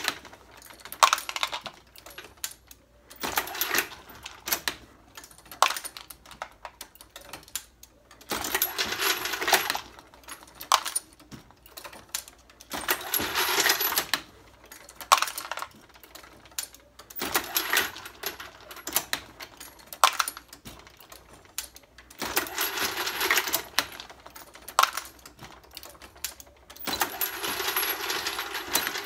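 Hornady Lock-N-Load AP progressive reloading press being cycled while loading 9mm: brass cases and bullets clink and rattle in a burst every few seconds, with lighter clicks between as bullets are picked from a plastic bin.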